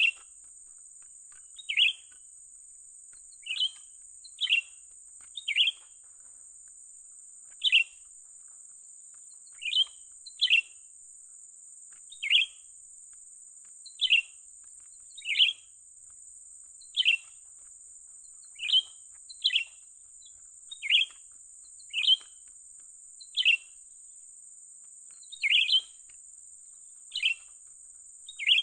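Cucak ranting bird giving short, sharp calls, roughly one every second or two and sometimes in quick pairs. A steady high-pitched whine runs underneath.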